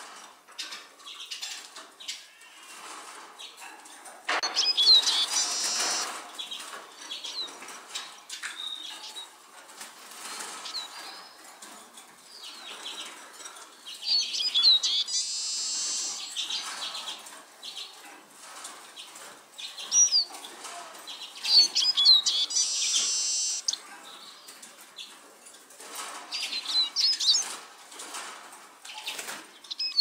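A tame Eurasian siskin twittering in four bursts of quick high chirps and buzzy wheezing notes, with light clicks in the pauses between.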